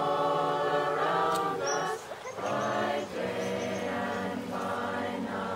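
A choir singing a slow chant in long held notes, with short breaks between phrases about two and three seconds in.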